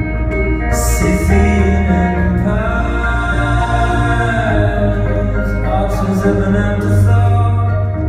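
Live band playing a song, with a man singing over electric guitar, bass, drums and piano; cymbal hits about a second in and near the end. Heard from the audience in a large, reverberant concert hall.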